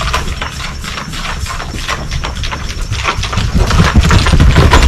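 Hooves of a young horse circling on a lunge line: a run of irregular knocks and scuffs over a low rumble.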